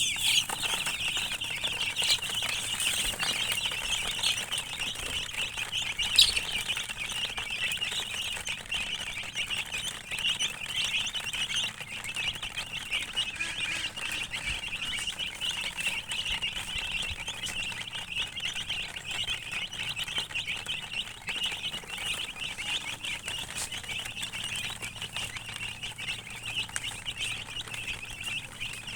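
Many chicks peeping at once, a continuous chorus of short, high overlapping chirps.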